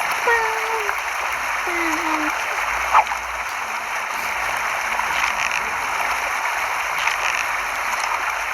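Steady rush of water, like surf or a stream, with a child's short voice in the first two seconds and a single sharp click about three seconds in.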